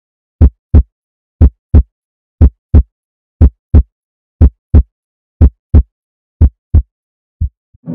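Heartbeat sound effect: deep double thumps, lub-dub, about one beat a second, seven beats in a row, then weaker thumps fading out near the end.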